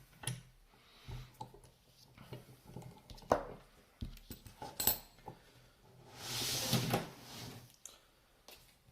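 Scattered metallic clicks and clinks as a just-picked Abloy padlock and its picking tools are handled, with the sharpest knocks a little past the middle and a brief hiss about a second long near the end.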